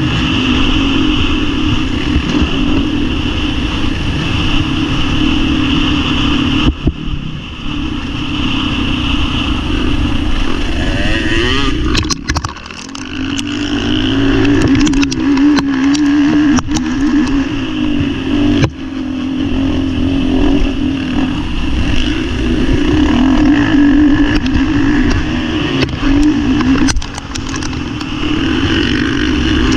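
Motocross bike engine heard close up from the bike's onboard camera, running hard at race pace. Its revs rise and fall with throttle and gear changes, and it drops off briefly a few times, about 7, 12 and 19 seconds in.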